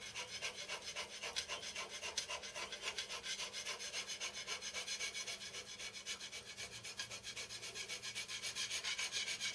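A hand scraper being pushed across a mild steel plate in rapid, even strokes, scraping down the high spots to flatten the surface.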